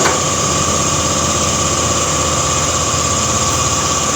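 Car engine idling steadily, with a short click right at the start.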